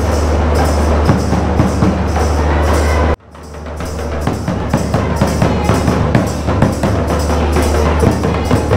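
Adivasi folk drumming played live for a dance, the drums beating a fast, even rhythm. It cuts off abruptly about three seconds in and comes back up within a second.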